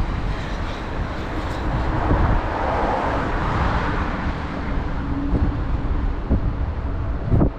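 Road traffic on a bridge approach: a continuous rush of passing cars, one swelling past and fading about midway, with wind buffeting the microphone. A sharp knock near the end.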